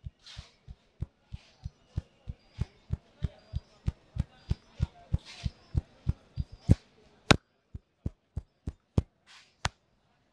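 Barber's hand tapping and slapping rhythmically on a man's head during an Indian head massage: quick, even thumps about three a second, with a couple of louder slaps about seven seconds in.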